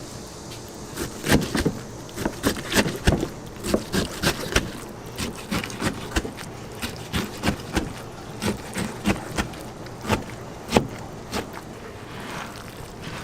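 Cooking utensils knocking and clicking irregularly, about two or three strikes a second, over a steady hiss of frying at a pancake stall.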